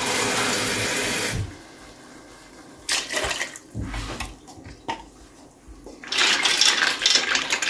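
Water poured for cooking: a steady stream that cuts off suddenly about a second and a half in, then smaller pours of water into a stainless steel pot of penne. Near the end comes a louder, rough sloshing as the pasta is stirred in the liquid with a wooden spatula.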